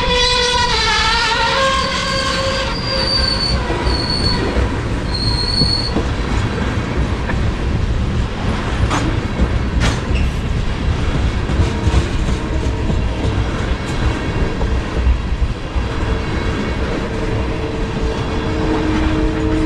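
CPKC local freight train rolling past: a horn blast drops in pitch and fades in the first couple of seconds. Then the cars rumble and clatter by, with high-pitched brake squeals a few seconds in and lower squeals again near the end.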